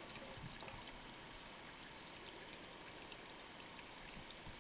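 Faint steady trickle of water, with a few light ticks.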